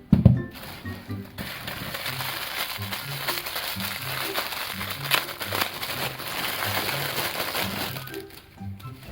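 A low thump at the start, then several seconds of plastic packaging crinkling and crackling as a toy is unboxed, over background music.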